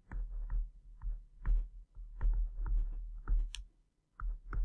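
Stylus writing on a tablet: a run of small, irregular taps and clicks as words are handwritten, over a steady low electrical hum.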